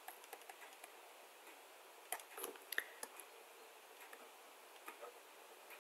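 Faint, scattered clicks and taps of a stylus writing on a tablet, with a few louder taps about two to three seconds in.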